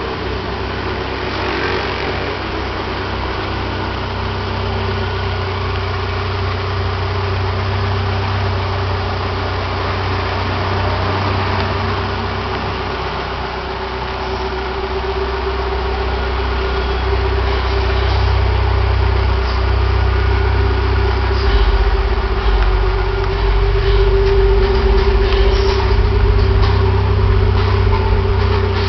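An engine idling steadily with a constant low hum, growing a little louder from about halfway through.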